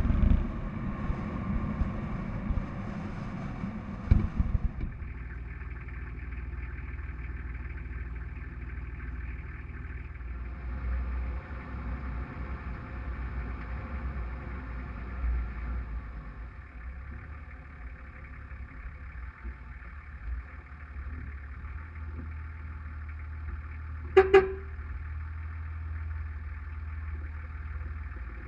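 Toyota Land Cruiser HZJ75's 4.2-litre six-cylinder diesel running as the truck drives a rough dirt track, louder and jolting at first with a knock about four seconds in, then a steadier, quieter hum. Near the end the horn gives a short double toot.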